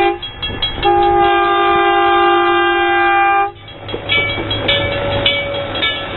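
Horn of the L.O.&S. No. 10 self-propelled rail motor car sounding for a grade crossing: a short toot, then one long blast of about three seconds on several notes at once. After it the car rumbles past over the crossing with regular sharp clicks.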